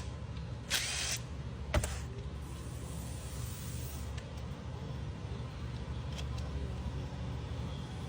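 Hand work on a string trimmer's carburetor as it is pulled off to expose its gasket: a short hiss about a second in and a single sharp click a little under two seconds in, over a steady low hum.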